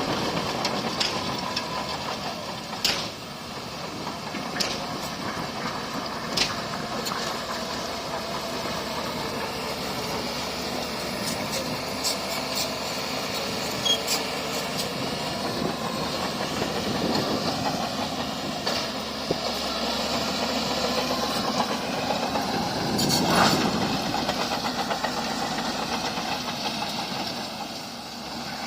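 Bulldozer's diesel engine running steadily, with sharp clanks from the crawler tracks every few seconds and a louder swell near the end.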